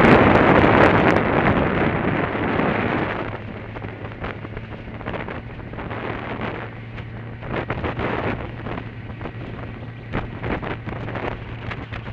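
Wind buffeting the microphone of a moving motorcycle, with the motorcycle's engine running steadily underneath as a low hum. The wind noise is loudest for the first three seconds, then eases off, broken by frequent short crackles.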